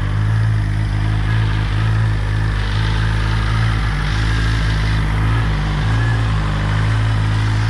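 2021 BMW S1000RR inline-four engine running at a steady idle through its stock exhaust and catalytic converter. Its exhaust flap is held open by a Brentune Stage 2 ECU flash, which gives the idle a deeper sound.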